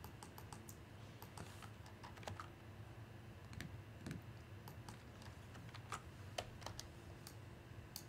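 Faint computer keyboard typing: scattered, irregular keystrokes and clicks.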